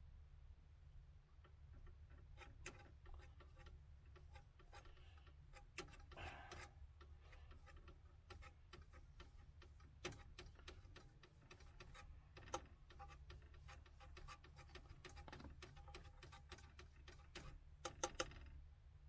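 Metal fork tapping and scraping against a coated frying pan while breaking up raw ground meat: faint, irregular clicks, with a quick run of louder taps near the end. A steady low hum runs underneath.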